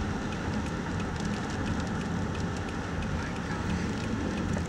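Strong storm wind rushing and buffeting, with a steady low rumble and scattered light ticks: the winds close to a violent tornado.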